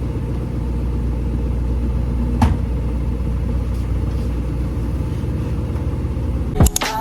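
Steady low rumble of a running vehicle, with a single sharp click about two and a half seconds in.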